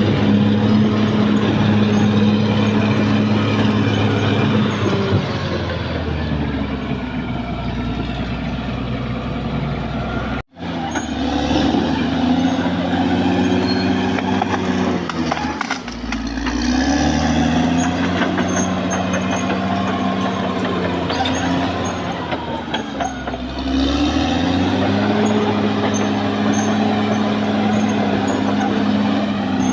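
Caterpillar D6R XL bulldozer's diesel engine working. Its pitch sags as it lugs under load about five seconds in, and again around halfway and later, each time picking back up. The sound cuts out for an instant about a third of the way in.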